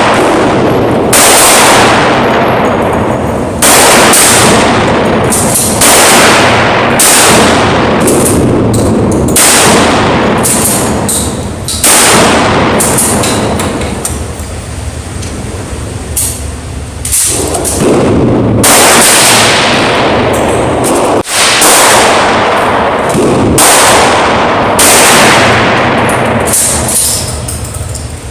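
Glock 20 pistol in 10mm Auto firing a slow string of about twenty loud shots, one every second or two with some close pairs, each shot followed by a long fading tail.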